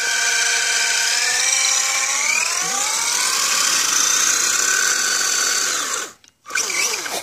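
Electric motor and gears of a Redcat Piranha RC truck whining under held throttle while the truck stays put, rising in pitch over the first few seconds, holding high, then cutting off about six seconds in. One tire spins while the other barely turns, a sign of the loose rear diff, which the owner puts down to thin diff oil or the slipper clutch.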